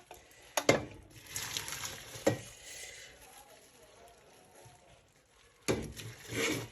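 A few sharp knocks and clatters of kitchen things being handled, with a faint hiss between the first two.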